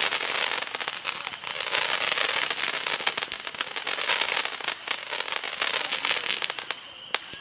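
Biggs neon tracer candles firing: a rapid, continuous stream of small shots and crackles. It thins out to a few separate pops near the end, as the roughly 200-shot candles run down.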